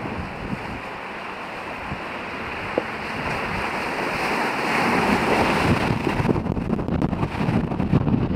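Strong gusty wind buffeting the microphone: a rushing hiss that builds over several seconds. About six seconds in it turns into lower, irregular rumbling and crackling.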